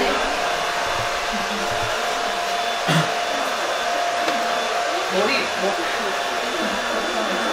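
Hair dryer running steadily: a constant blowing rush with a thin steady whine in it. A short knock about three seconds in.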